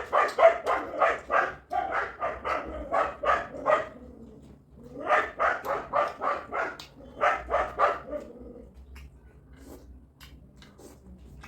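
A dog barking in two runs of quick barks, about three a second, with a pause of about a second between the runs.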